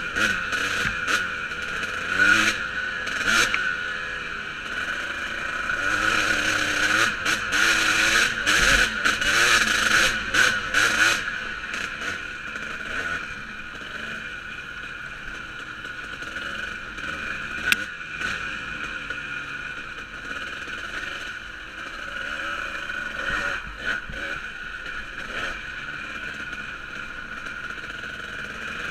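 Dirt bike engine running on a rough trail, its pitch rising and falling as the throttle opens and closes, with knocks and rattles from the bumpy ground. It is loudest and busiest for a few seconds about a quarter of the way in, then runs more steadily.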